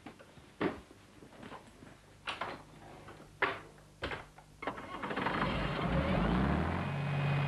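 A few scattered knocks, then about five seconds in a bus's diesel engine runs up loudly, its pitch rising for about a second before it holds steady.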